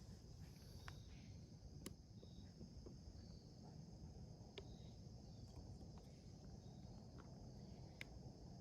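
Near silence with a faint, steady insect chorus of high-pitched trilling, short chirps every second or so, and a few small clicks.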